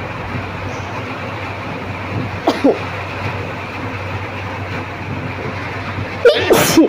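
A person sneezing twice, brought on by tickling the nose with a cotton bud. The first sneeze, about two and a half seconds in, is short. The second, near the end, is louder. A steady rushing background noise runs underneath.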